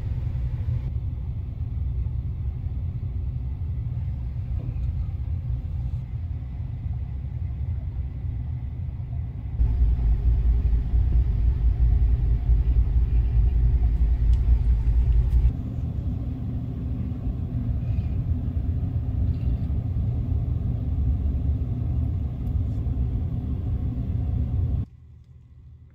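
Steady low rumble, like a small machine's hum. It grows louder for several seconds in the middle and cuts off suddenly near the end.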